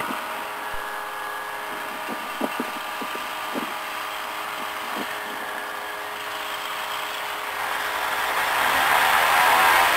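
Small single-engine airplane's piston engine and propeller running at taxi idle with a steady hum, a few light clicks a few seconds in, and the sound growing louder over the last two seconds.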